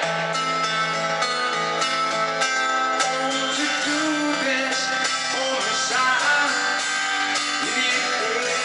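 Live rock band playing: a guitar picking chords note by note in a steady pattern, with a man singing over it from about the middle.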